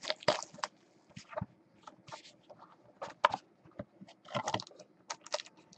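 Hands opening a cardboard trading-card box: scattered clicks, crinkles and scrapes of cardboard and wrapping, most of them about four and a half to five and a half seconds in.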